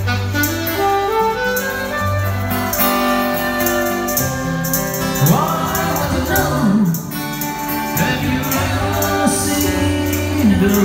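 Live band music: a saxophone plays sustained melody notes over acoustic guitar, a steady bass line and a regular beat, and a man's singing voice comes in about five seconds in.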